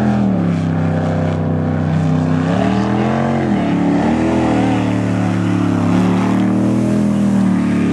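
Jet sprint boat engine running hard through the course. Its pitch drops sharply at the start, climbs and falls again about three seconds in, then rises and eases repeatedly as the boat works through the turns.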